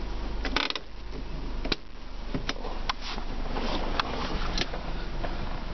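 A series of short clicks and light plastic knocks from a hand working the automatic gear shifter and centre-console trim, over the low steady hum of the idling engine.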